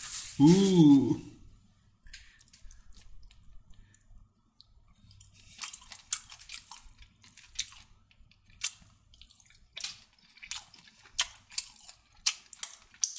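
Takeaway food packaging being opened and handled: scattered sharp clicks and light crackles, one or two a second, after a brief hummed voice sound at the start.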